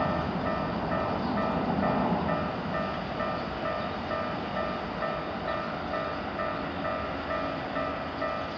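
Japanese level crossing's warning bell ringing in a steady, evenly repeated electronic chime, over the rumble of a train running through the crossing. The train noise eases off after the first couple of seconds while the bell keeps ringing.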